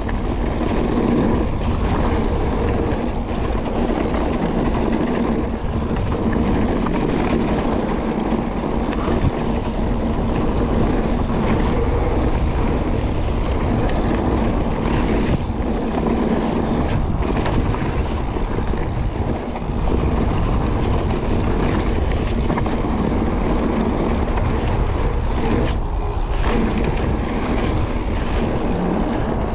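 Mountain bike running fast down a dry dirt trail: steady rush of wind on the camera microphone over the rumble of tyres on the packed dirt and gravel, with scattered knocks and rattles from the bike over bumps.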